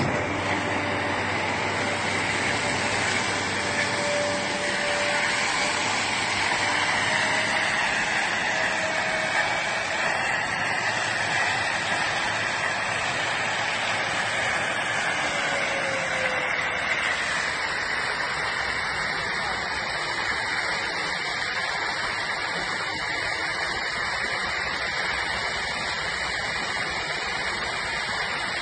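Water spraying in a steady rushing hiss, with a faint machine tone under it that fades out about halfway through.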